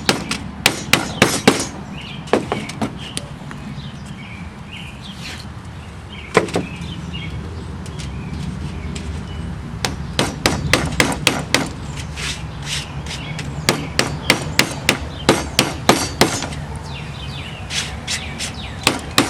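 Hammer tapping a metal screen spline down into the channel of an Andersen window screen frame, setting it over new metal screening: light, sharp taps in quick runs with short pauses between them.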